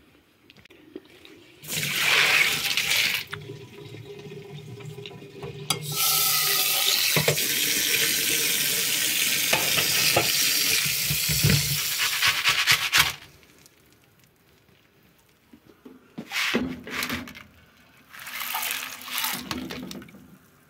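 Kitchen tap running water into a cooking pot, filling it for the beans: a short rush about two seconds in, a long steady rush of about seven seconds in the middle, and two brief splashes near the end.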